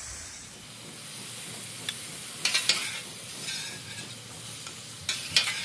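Steak chunks sizzling on a Blackstone flat-top griddle as a metal spatula scrapes them across the steel top. There are a few sharper scrapes about two and a half seconds in and again near the end.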